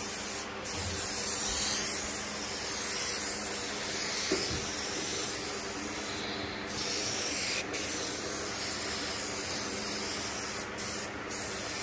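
Aerosol can of 3M spray adhesive hissing in long steady passes, broken by a few short pauses as the nozzle is let off, under a faint steady hum.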